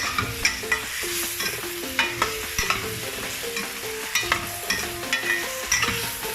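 Tomatoes and sweet potato sautéing in a sizzling pan while a utensil stirs them, knocking and scraping against the pan with frequent sharp clicks.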